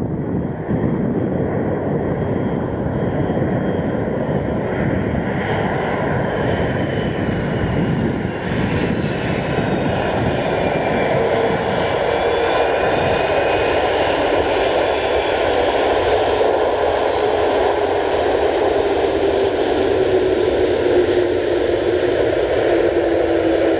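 Airbus A330-200 airliner's turbofan engines running as it comes in to land, touches down about halfway through and rolls out along the runway. A steady, loud jet noise, with whining tones that come in past the middle and slowly fall in pitch.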